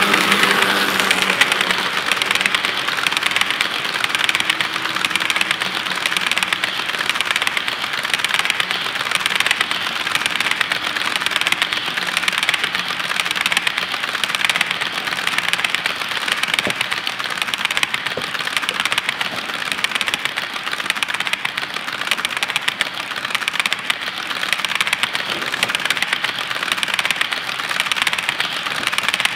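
A string of HO-scale coal cars rolling past on model track: a steady rattle of wheels on rail, with fast, even clicking.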